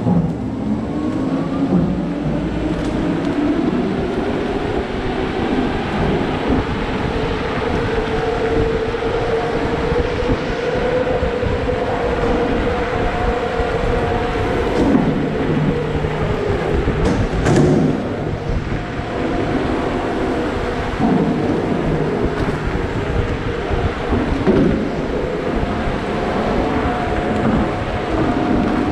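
Wind rumble on the microphone of a Sherman electric unicycle on the move, with the hub motor's whine slowly rising and falling in pitch as the speed changes.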